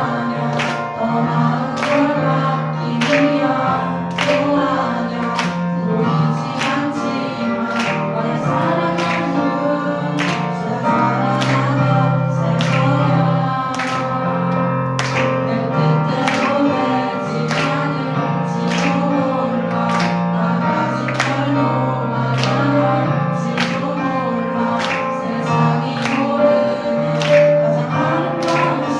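Contemporary Christian worship music: a group of singers with a full band, steady bass and a regular drum beat.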